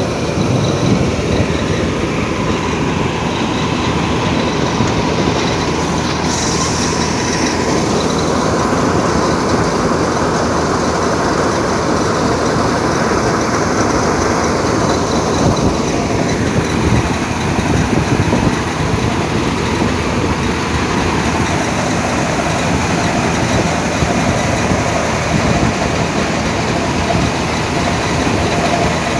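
Rice combine harvester running steadily, its engine and threshing machinery making a loud, continuous mechanical din while it unloads threshed rice grain through its auger spout.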